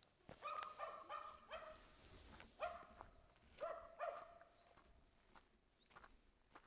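A dog barking repeatedly, faint, about once a second, in short groups that stop a little after four seconds in.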